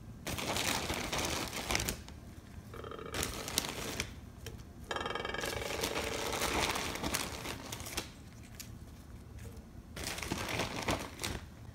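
Pre-cooked battered shrimp being shuffled by hand and scraped into place in a glass baking dish: dry rustling and scraping in spurts, with a couple of brief tones near the middle.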